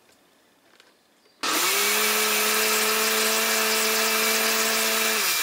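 Countertop blender starting up about a second and a half in and running at a steady pitch, blending puréed zucchini and milk with red jello; it cuts out right at the end.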